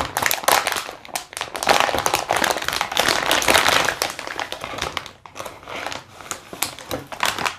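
Plastic anti-static bag crinkling and rustling in a dense, irregular crackle as a graphics card is slid out of it by hand. The crackle thins out after about five seconds.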